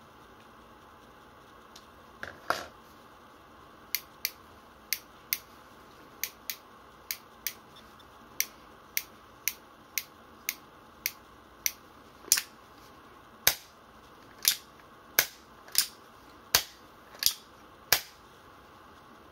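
Sharp metallic clicks from the action of a Tokyo Marui SAA.45 replica single-action revolver being worked by hand. The clicks come in quick pairs at first, then settle into a steady run of about two a second and grow louder over the second half.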